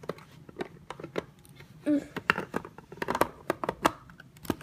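Plastic Mega Bloks pieces clicking and clattering as they are handled and pressed back together, a string of irregular sharp clicks.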